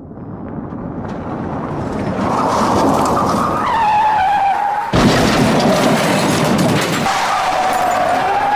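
Motor whine of a BetaFPV Meteor 75 Pro micro FPV quadcopter. It fades in over the first couple of seconds and then holds a steady, slightly wavering pitch, with abrupt changes in the sound about five and seven seconds in.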